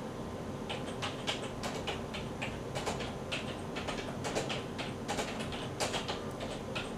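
Irregular light clicks and ticks, a few a second, of tiny metal screws being nudged about in a palm with the tip of a small Phillips screwdriver.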